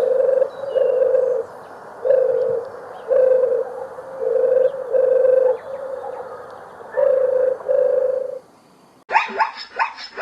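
A bird's low cooing call repeated about eight times, mostly in pairs of short hoots at one steady pitch, with faint high chirps of other birds behind it. Near the end a different animal breaks in with a rapid string of sharp yelps.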